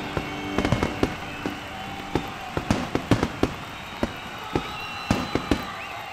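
Fireworks going off: a dozen or so sharp bangs at irregular intervals over a crackling hiss, with thin whistling tones near the end.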